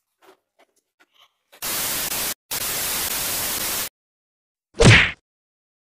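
Edited-in TV-static white noise: an even hiss lasting about two seconds, with one brief break, then a single short, loud hit about a second after it stops. A few faint light ticks come before the static.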